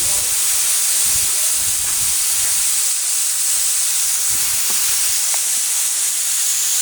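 Waterfall splashing down a rock face: a steady, loud hiss of falling water and spray.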